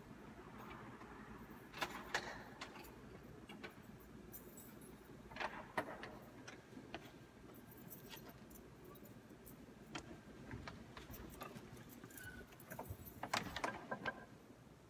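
Light clicks and rattles in a few short, irregular clusters over the quiet of a church, from someone moving close to the microphone. The last and loudest cluster comes near the end, as a priest walks past.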